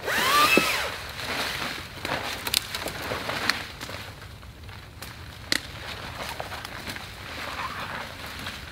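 Footsteps pushing through dry brush, briars and fallen leaves: rustling and crackling, with a few sharp twig snaps. The loudest sound is a brief rising squeak in the first second.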